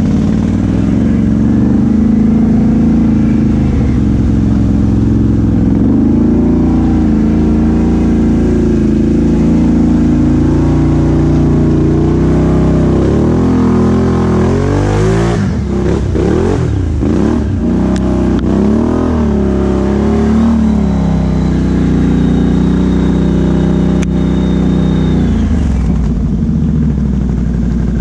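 ATV V-twin engine with an aftermarket exhaust running under way, its pitch rising and falling with the throttle and revving hard through the middle.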